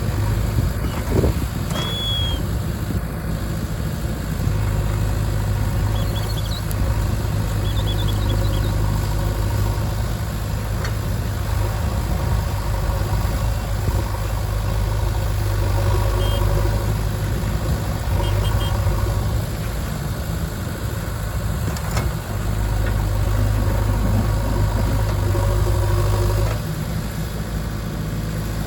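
Diesel engine of a JCB 3DX backhoe loader running steadily, growing louder for long stretches and then easing back as it works.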